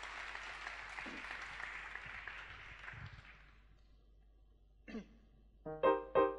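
Audience applause dying away over the first few seconds. Near the end come a few short keyboard notes.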